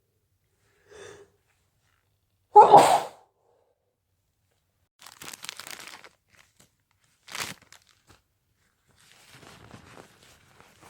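A person with a head cold sneezing once loudly, about two and a half seconds in, after a faint short catch of breath. It is followed by quieter crackly rustling, like a paper tissue being handled, and a short sharp nasal puff.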